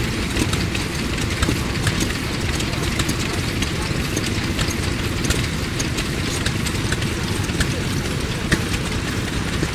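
Yoshida Type D 2.5 hp stationary engine running steadily, driving a straw rope making machine whose gears and mechanism add many light irregular clicks.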